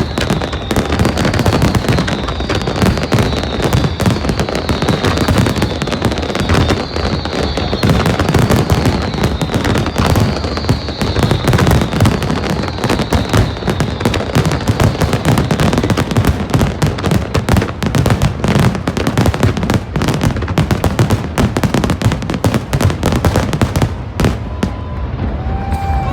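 Fireworks display at full intensity: a dense, continuous barrage of bangs and crackling bursts, with repeated short falling whistles in the first half. The barrage thins out near the end as a crowd begins cheering.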